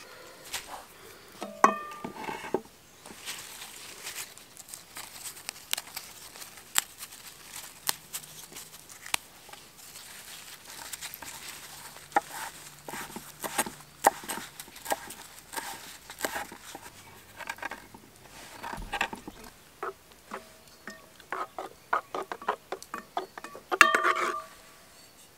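Chef's knife chopping fresh leaves on a wooden log, a long run of sharp taps. Near the end a metal ladle clinks against a metal pot with a short ring, and there is a similar clink about two seconds in.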